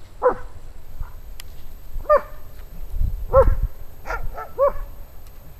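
A German Shepherd-type dog barking, about six single barks at uneven intervals, three of them close together near the end.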